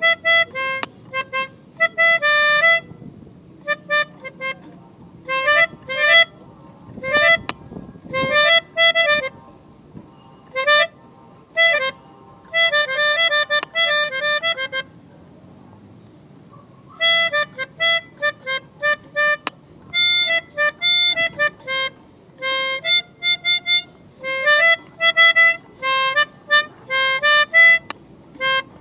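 Melodica (pianika) playing a telolet bus-horn tune in runs of short, quick staccato notes. There is a pause of about two seconds about halfway through.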